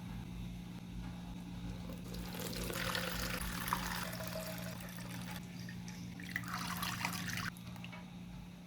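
Water running or pouring in two spells, the second stopping suddenly, over a steady low electrical hum.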